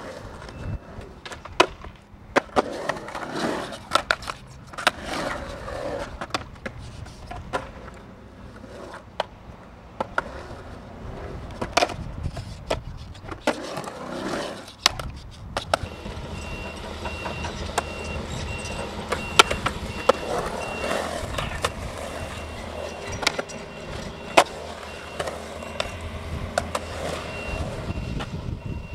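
Skateboard wheels rolling on concrete, with sharp clacks and knocks scattered throughout as the board pops, lands and strikes the bowl's coping.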